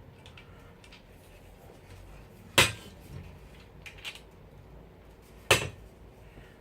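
Two sharp clacks of hard parts knocking together, about three seconds apart, with a couple of lighter clicks between: screw-in caster wheels being handled and fitted to a folding laptop table's base.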